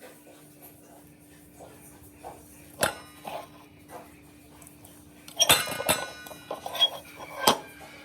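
Metal dishes and utensils clinking and knocking together, with several sharp ringing strikes: one about three seconds in, a cluster around five and a half to six seconds in, and one more near the end.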